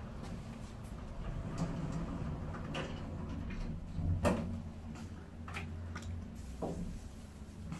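AS Ascenseurs panoramic electric traction elevator travelling, heard from inside the cabin: a steady low hum with light clicks and knocks about once a second.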